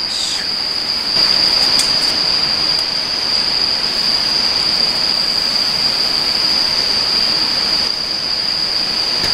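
Salted golden-eye snapper sizzling on a grill over a wood fire: a steady hiss that grows louder about a second in. A constant high chirring of crickets runs behind it.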